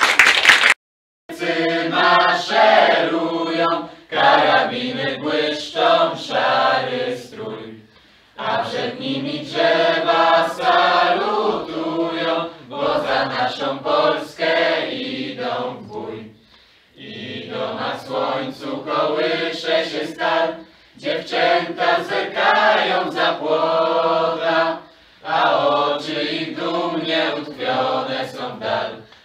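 A group of young women and men singing together, in phrases of a few seconds with short breaths between. A brief noise comes at the very start, and the singing begins about a second in.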